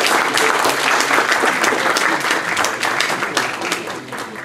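Audience applauding after a speech, a dense patter of many hands clapping that begins to fade near the end.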